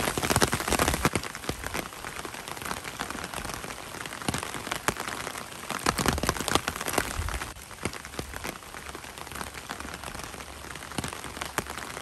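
Rain falling steadily, with many sharp raindrop ticks close by.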